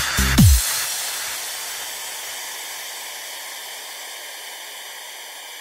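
The end of a donk dance track: the pounding beat stops under half a second in with a bass note sliding down in pitch, leaving a long hiss of noise that slowly fades away.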